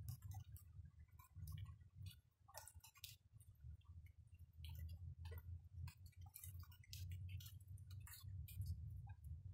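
Faint, scattered drips of rainwater ticking irregularly onto hard surfaces and wet leaves, several a second, over a low steady rumble.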